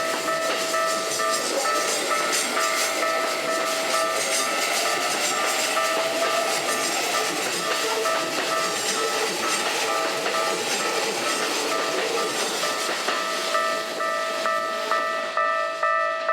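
A Keikyu Main Line train passing over a level crossing, its wheels running loud on the rails, while the crossing's electronic warning bell rings steadily. The train noise stops shortly before the end, leaving the bell's regular dings.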